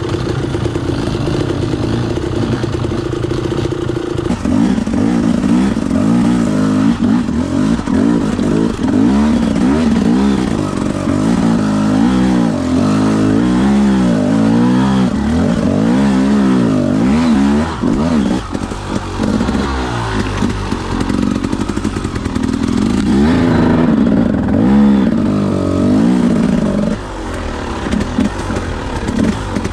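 Enduro dirt bike engine revving up and down again and again under load on a steep, rocky trail climb. The engine is held steadier for the first few seconds, then rises and falls over and over as the throttle is worked.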